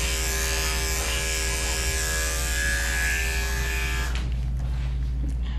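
Andis electric dog clippers running with a steady hum while clipping the fur on a dog's paw, then cutting off suddenly about four seconds in.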